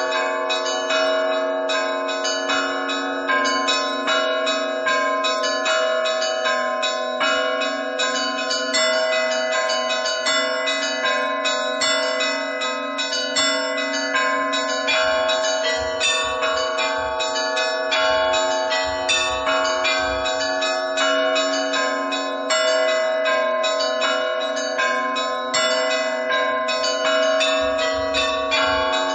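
Russian Orthodox church bells ringing a full peal: many bells struck in quick, continuous succession over the steady ringing of the larger bells.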